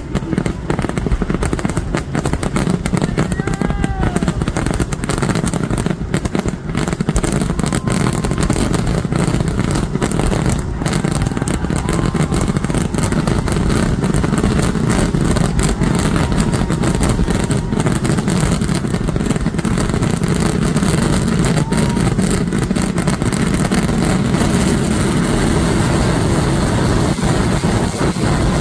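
Festival fireworks barrage going on without a break: a dense, rapid stream of crackling bangs over a steady low rumble. A few short whistling glides come about three to four seconds in.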